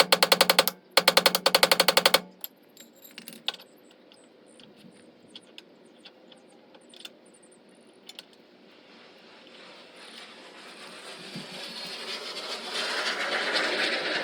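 Air impact wrench hammering in two bursts, about a second each, as suspension or brake bolts are worked. A few scattered light clicks follow, then a hiss builds steadily over the last few seconds.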